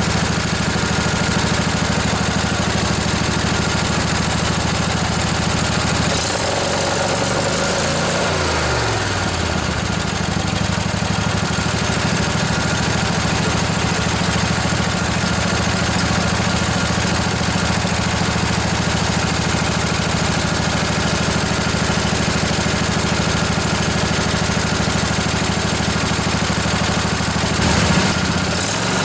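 Briggs & Stratton Intek OHV twin-cylinder riding-mower engine running steadily at idle.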